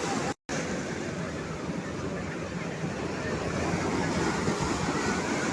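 Ocean surf washing on a beach, a steady rush of waves, with a brief complete break in the sound near the start.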